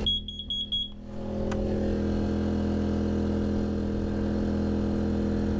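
Carbon monoxide alarm beeping rapidly, about eight short high beeps in the first second, set off by exhaust fumes from a portable generator. Then the generator's engine running steadily.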